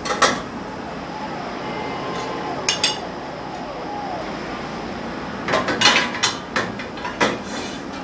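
Steel plates clanking against each other and the dishwasher's wire rack as they are set into the lower rack, with a metallic ring after each knock. A few clanks near the start, two about three seconds in, and a quick run of them in the second half.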